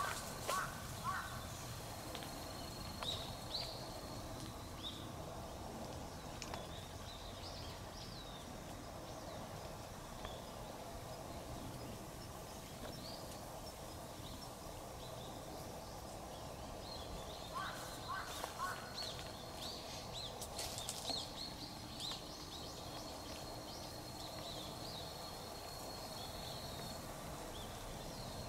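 Birds chirping now and then, in short calls with clusters near the start and again about two-thirds through, over a steady background hum, with a thin high steady tone in stretches.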